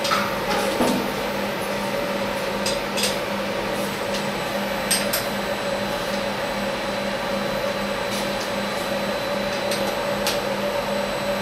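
Light metallic clicks and taps, about ten scattered through, as a hex key works the hold-down clamp bolts of a machine vise on a CNC milling table, over a steady hum.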